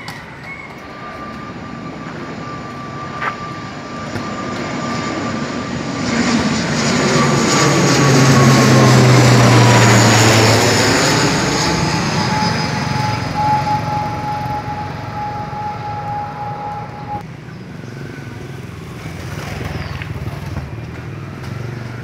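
ATR twin-turboprop airliner passing low overhead on landing approach. Its propeller drone builds to a loud peak about halfway through, then fades, and a high whine drops in pitch as it goes by.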